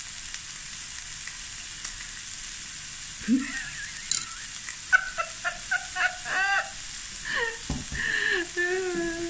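Diced onions sizzling steadily in hot oil in a stainless-steel pan. In the second half a few short knocks and brief voice-like sounds come over the frying.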